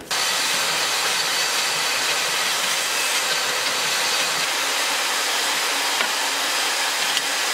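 Bandsaw running and cutting through a metal rod: a steady, even hiss-like noise that starts abruptly and holds at one level throughout.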